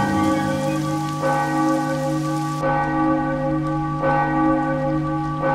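A deep bell tolling slowly, struck about every second and a half, each stroke ringing on into the next. A steady hiss sits under the first few strokes and cuts off suddenly about two and a half seconds in.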